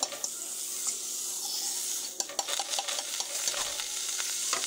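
A pancake and melting butter sizzling in a hot nonstick frying pan: a steady hiss with scattered crackles that come thickest about two seconds in.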